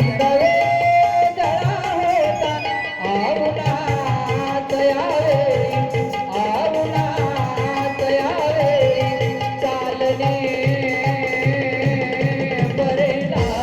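Instrumental interlude of a live Indian folk song: tabla-type hand drums keep a steady rhythm under a melody line that slides and wavers in pitch over held drone notes.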